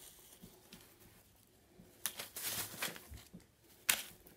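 Wire cutters snipping through the wire stem of an artificial flower: a second of rustling handling, then one sharp click near the end.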